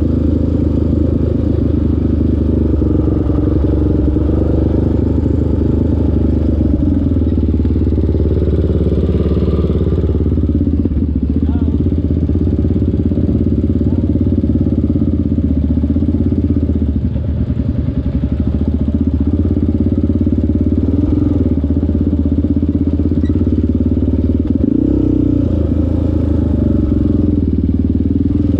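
ATV engine running steadily while riding, its pitch shifting a little now and then.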